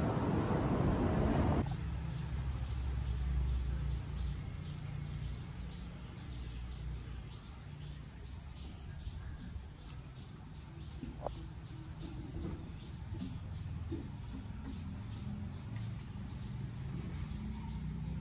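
For the first second and a half, the busy hubbub of a shopping arcade; then it cuts to a steady, high-pitched drone of insects singing, with a low rumble underneath.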